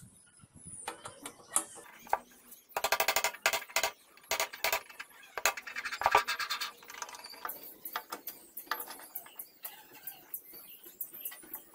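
A socket wrench ratcheting on the nut of a bench drill's spindle pulley: a quick, even run of clicks a few seconds in, then scattered metallic clicks and knocks as the pulley and tools are handled.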